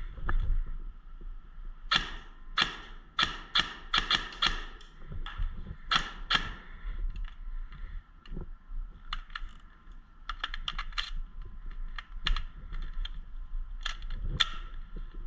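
Airsoft guns firing single shots at irregular intervals, a scatter of sharp snapping clicks that cluster about two to seven seconds in and again later.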